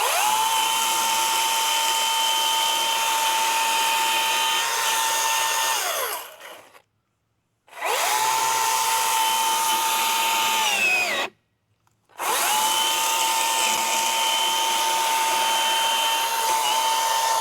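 Milwaukee M18 battery top-handle chainsaw's direct-drive electric motor run three times: each run the whine climbs quickly to a steady high pitch, holds for several seconds while the chain cuts into an ash log, then spins down, with about a second or so of silence between runs. The owner takes the saw's weak cutting under light pressure as a sign that it is failing.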